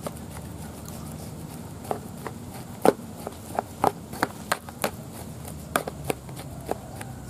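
A ladle mashing cassava in a clay bowl, knocking against the bowl and the chunks in an irregular string of sharp clicks and knocks, the loudest about three seconds in.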